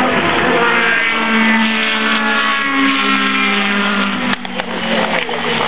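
Endurance racing car passing at speed, its engine note falling in pitch as it goes by, with a brief dip about four seconds in.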